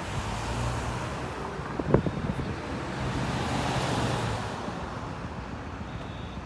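Street traffic noise with wind on the microphone, broken by one sharp knock about two seconds in, then the rush of a passing vehicle swelling and fading. Near the end a faint high beep of the building's fire alarm is heard.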